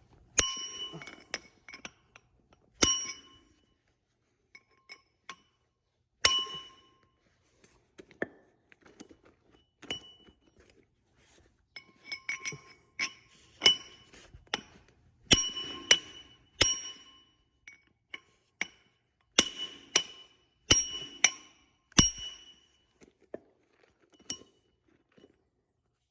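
Hammer striking steel at an irregular pace: a dozen or so sharp, ringing blows with lighter taps between, working a bearing along the drive shaft of a Gleaner R72 combine's final drive.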